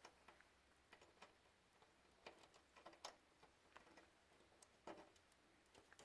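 Faint, irregular clicks and taps of front-panel cables and connectors being handled inside a computer case.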